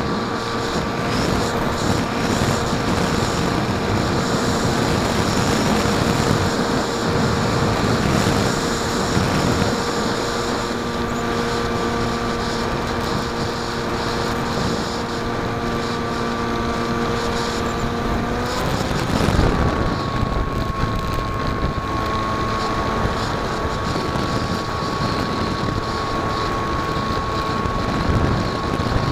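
Propeller and motor of a foamboard flying-wing RC plane running steadily in flight, heard from a camera on the wing: a steady whine over wind rushing past the microphone. About two-thirds of the way through the pitch wavers briefly with a throttle change, then holds slightly lower.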